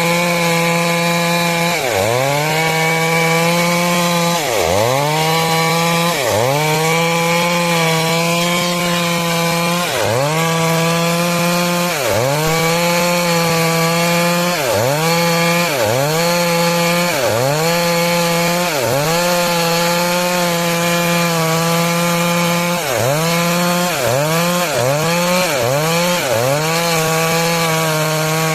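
Stihl MS 382 two-stroke chainsaw running at high revs while cutting wood lengthwise into planks. Its pitch drops sharply and recovers every second or two as the cut loads the engine, and the dips come about once a second near the end.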